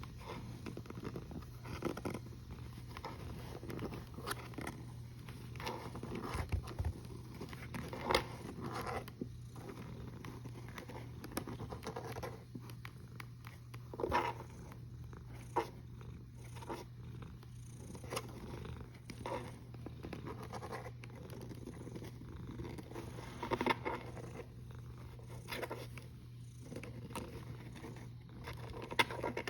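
Sleeping domestic cat snoring, a soft breathy snore with each breath every couple of seconds over a steady low hum.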